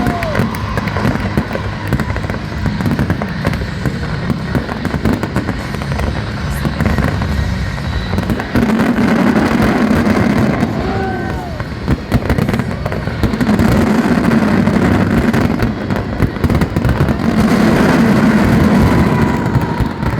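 Aerial fireworks going off in rapid, dense succession, a steady run of bangs and crackles, with voices and music underneath.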